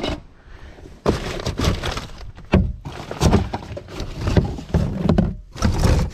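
A gloved hand rummages through rubbish in a plastic wheelie bin: plastic bags and wrappers rustle and crinkle, with scattered knocks and one sharp thunk about two and a half seconds in.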